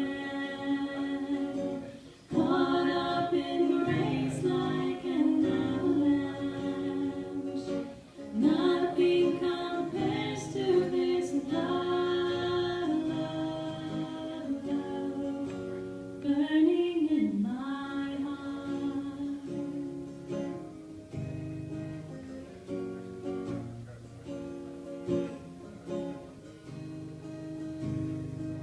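Live female singing of a worship song, accompanied by guitar, with brief pauses between sung phrases about two and eight seconds in.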